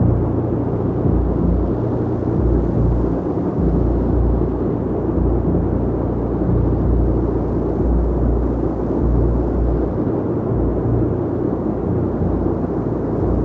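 Steady low drone of B-29 Superfortress bombers' radial piston engines in flight, a dense rumble that swells and eases slightly without a break.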